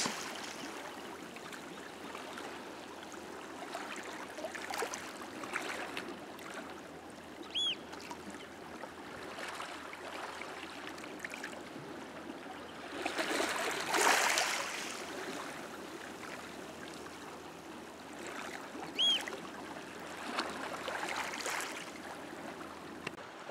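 Calm sea lapping and trickling gently among shore rocks, with one louder wash of water about two-thirds through. Two brief high chirps stand out, one about a third in and one near the end.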